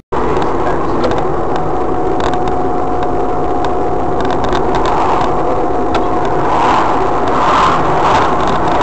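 Steady vehicle running noise, engine and road, starting abruptly, with a few sharp clicks scattered through it.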